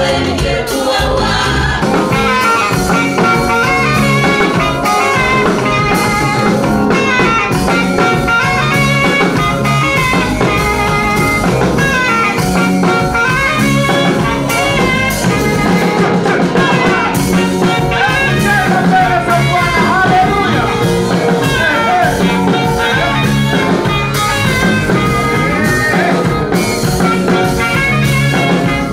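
Gospel praise music: a singing voice or voices over a band with guitar and drums.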